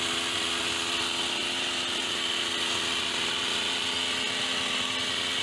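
Petrol hedge trimmer engine running steadily, its pitch and level holding constant.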